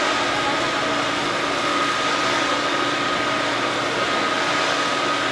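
Automated fish cake production machinery running steadily, a constant mechanical hum and rush with a high steady whine.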